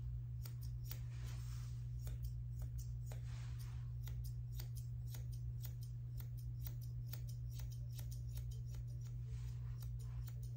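Grooming shears snipping through a Bichon puppy's fluffy coat: many short, crisp cuts at an uneven pace, several a second at times, over a steady low hum.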